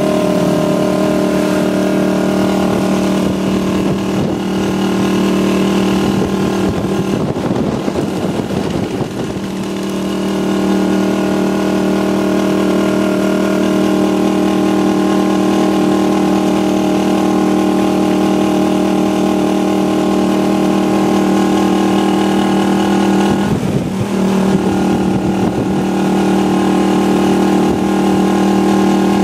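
Tricycle's motorcycle engine running steadily at cruising speed, heard from inside its passenger sidecar. Its steady note breaks up briefly twice, about a third of the way in and again about four-fifths through.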